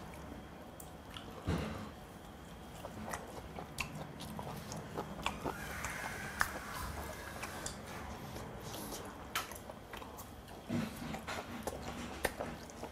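A man chewing a mouthful of spicy stir-fried pork close to the microphone, with scattered small clicks from metal chopsticks and dishes.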